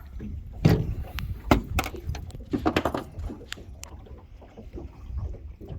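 Irregular knocks and thumps on a boat, a quick cluster of them about three seconds in, over a low steady rumble.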